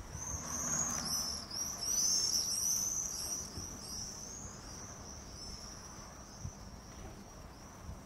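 High-pitched animal chirping: a fast, continuous run of short rising-and-falling chirps, loudest over the first three seconds and then fading.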